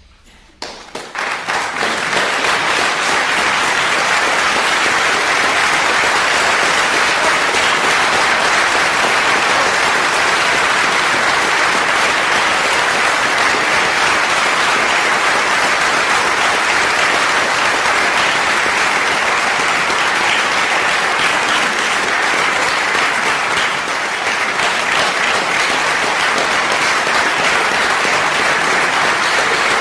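Concert audience applauding: a few scattered claps about half a second in, swelling within a couple of seconds into steady, full applause.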